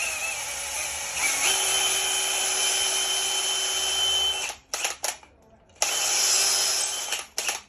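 Electric drill boring a hole into a block of wood, with a steady motor whine. It runs for about four and a half seconds, gives a few quick blips, then runs again for about a second and a half before a couple of short blips.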